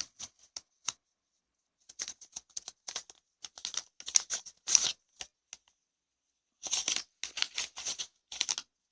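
Paper entry slips being shaken and stirred in a container: bursts of dry rustling and scraping, with a couple of short pauses.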